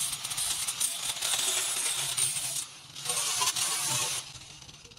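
Handheld angle grinder with an abrasive disc grinding rusted sheet steel on a car's rocker panel: a harsh, hissing metal-on-abrasive noise. It breaks off briefly a little past halfway, resumes, and stops about four seconds in.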